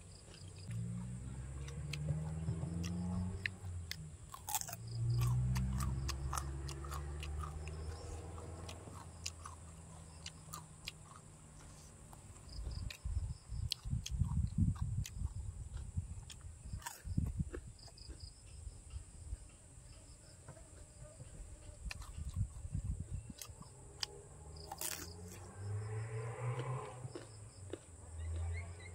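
A person chewing and crunching mouthfuls of Isan-style pounded long-bean salad with crispy pork belly and raw vegetables, close to the microphone, with a run of crunching bites in the middle.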